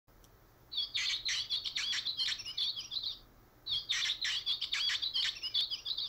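Recorded painted bunting song played through the small speaker of a Wild Republic plush toy bird: two warbling phrases of about two and a half seconds each, a short pause between them. It has a staticky sound, which the owner takes as the toy wearing out.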